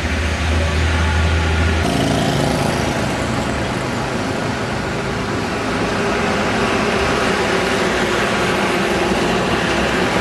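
Road traffic: motor vehicle engines running steadily, with a strong low engine hum that breaks off abruptly about two seconds in, giving way to a broader, even street-traffic noise.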